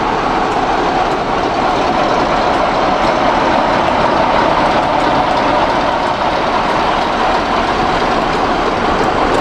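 Class 45 'Peak' diesel-electric locomotive D123 passing, its Sulzer twelve-cylinder diesel engine running steadily.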